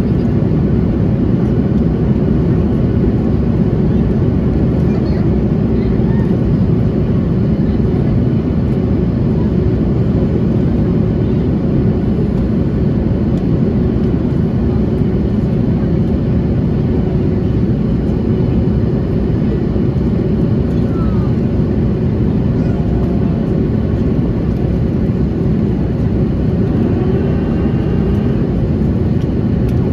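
Steady cabin noise of an Airbus A330-200 airliner in descent, heard from a window seat over the wing: a deep, even drone from the airflow and its General Electric CF6 turbofan engines.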